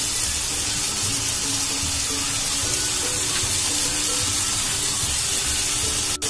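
Onion and capsicum pieces sizzling steadily in oil in a frying pan, with soft background music of held notes underneath. The sound dips briefly just before the end.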